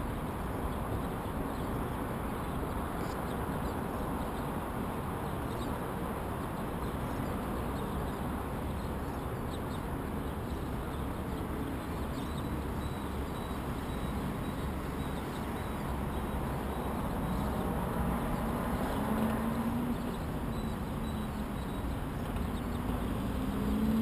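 Steady hum of city street traffic heard from high above. Near the end a vehicle engine rises in pitch twice as it accelerates.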